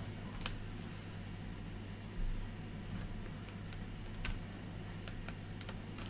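Light, irregular clicks and scrapes of a utility knife picking at the tape on a cardboard-and-plastic fan box, coming more often in the second half, over a steady low hum.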